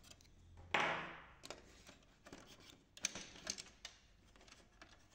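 Small clicks and knocks of hard plastic parts and a metal screwdriver as a pin is worked out of the printer's scanner-cover support: one louder clack about a second in that rings briefly, then a few faint clicks near the middle.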